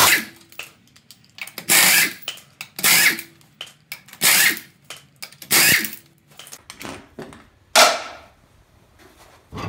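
Pneumatic impact wrench spinning off a truck wheel's lug nuts in six short bursts, about one a second, with small clicks between them.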